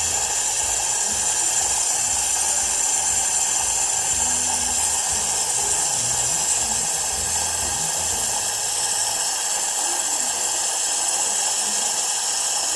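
Espresso machine steam wand hissing steadily and loudly, steaming milk.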